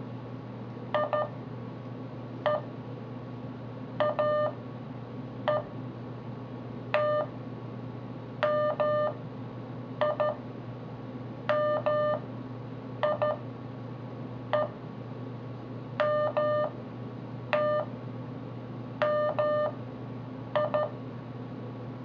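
Morse code practice tones from a phone's tutor app, sending random single letters from A to M as short and long beeps, one letter about every one and a half seconds. A steady low hum runs underneath.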